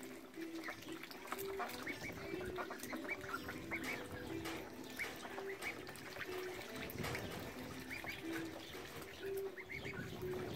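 A flock of domestic ducks, Pekins and runner ducks, quacking and calling over and over while dabbling and splashing in a tub of water.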